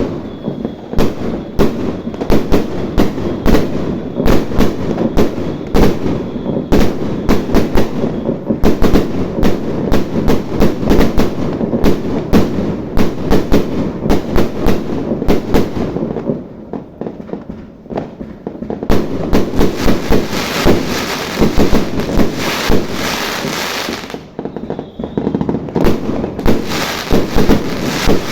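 Fireworks going off in a dense barrage of sharp bangs, several a second, over a continuous crackle. The barrage eases briefly about two-thirds of the way through and again near the end before picking up.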